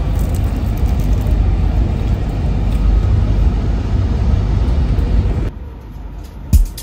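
Steady low rumble inside a regional train's passenger car, which drops away suddenly about five and a half seconds in. A beat of background music starts near the end.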